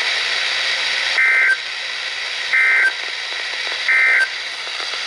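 Three short bursts of EAS digital data tones on NOAA Weather Radio, about a second and a third apart, each a warbling pair of pitches. They are the end-of-message code that closes the severe thunderstorm warning. Steady radio static hiss runs underneath.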